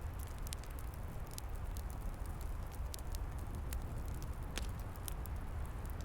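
Wood fire burning, with scattered sharp crackles and pops over a steady low rushing rumble of flames and wind in the trees.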